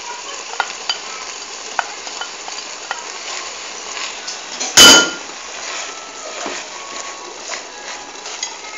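Spoon stirring shredded chicken and rice in a pot over a steady sizzle, with scattered light clicks of the spoon against the pot and one loud knock about halfway through.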